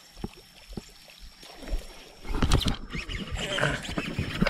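Faint ticking from a baitcasting reel during the retrieve. About two seconds in, a hooked giant snakehead (toman) thrashes and splashes at the surface, with rough rod-and-reel handling noise.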